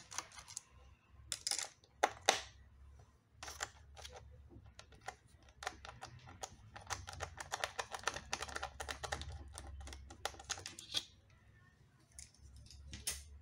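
Rapid clicks, taps and light scrapes of small plastic and metal parts being handled and pried loose inside an opened iMac, thickest in the middle of the stretch.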